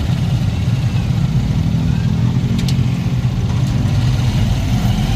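Engine of a motorcycle tricycle running steadily at a low pitch while riding through town, heard from the passenger seat.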